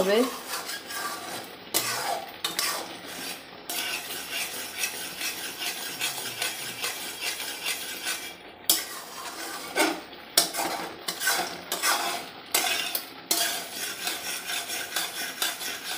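Metal spatula stirring and scraping thick, grainy reduced milk around a steel kadai, in irregular strokes of metal on metal. The milk is nearly thick enough to set as kalakand.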